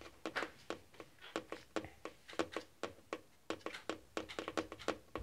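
Light, irregular clicking, several short clicks a second.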